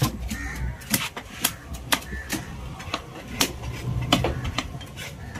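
Big fish knife chopping through tuna onto a wooden log chopping block: about ten sharp chops at an uneven pace, roughly two a second.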